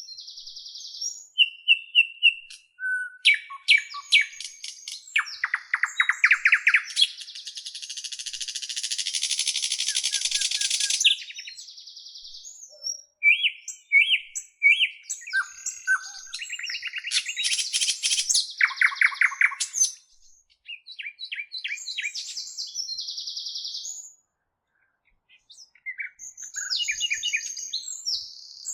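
Bird song: a varied run of chirps, rapid trills and whistled notes, with a harsh buzzing rattle lasting a few seconds about a third of the way in and a brief silence near the end.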